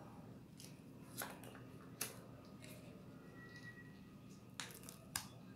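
Paper wrapper of a small cheese block being opened and peeled back by hand, with four short, sharp crinkles over a faint steady hum.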